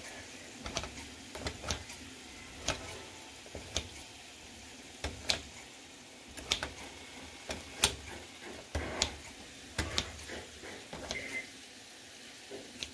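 Kitchen scissors snipping whole tomatoes in a plastic storage container: irregular sharp clicks of the blades closing and tapping the container, about one a second, some in quick pairs.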